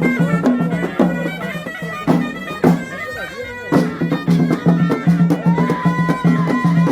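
Traditional Rif folk music: a reed wind instrument plays a melody over a regular drumbeat.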